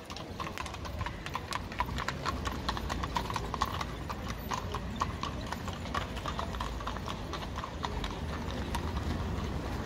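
Horse hooves clip-clopping on hard pavement: a quick, uneven run of hoof strikes, several a second, over a steady low rumble.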